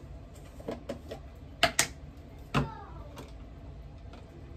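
A few hard clicks and knocks from a hair-product container being handled and set down on a bathroom counter. The two loudest come close together about a second and a half in, and another sharp knock with a short ring follows about a second later.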